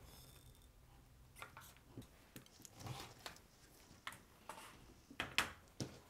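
Rotary cutter rolling through cotton fabric along an acrylic ruler on a cutting mat, with the ruler shifted and cut fabric pieces handled: a series of soft clicks, taps and short scrapes, the sharpest a little after five seconds.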